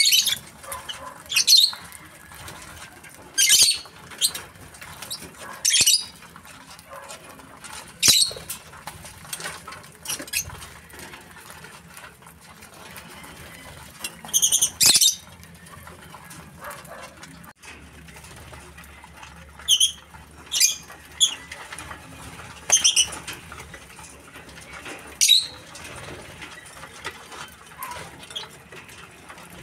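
A flock of lovebirds, Fischer's and masked lovebirds among them, giving short shrill high-pitched calls every couple of seconds over a faint steady background.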